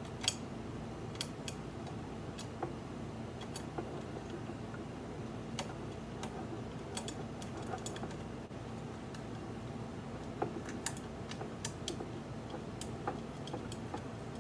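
Irregular light clicks and taps as metal spool bars and plastic spool cones are handled and fitted into a plastic spool tray, over a steady low hum.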